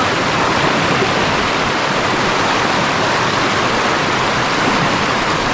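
Loud, steady rush of river water flowing over rapids.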